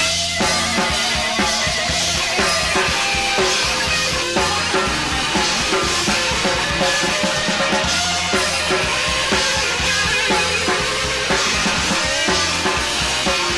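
Rock band playing live in an instrumental passage: a drum kit keeps a steady beat on bass drum and snare, under bass and electric guitar.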